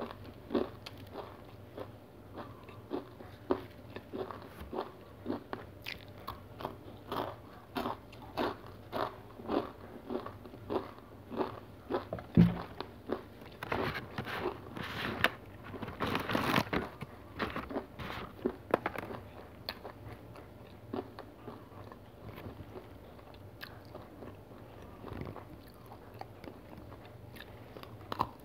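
Close-up crunchy chewing of a whole-grain cereal bar, a crisp crunch about twice a second. About halfway through comes a single sharp thump, then a few seconds of denser crackling. The chewing slows afterwards, and near the end there is a crisp bite into a black sesame cereal bar.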